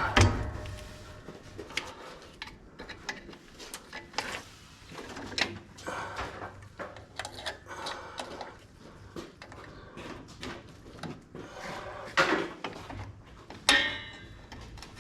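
Irregular metal clicks and knocks of drum brake shoes, springs and adjuster being handled as a brake spring is worked into place, with a couple of louder knocks near the end.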